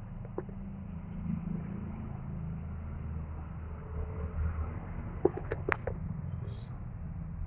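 Metal spatula stirring and turning beef fry in a pan, with a quick cluster of sharp clinks against the pan a little past the middle, over a steady low rumble.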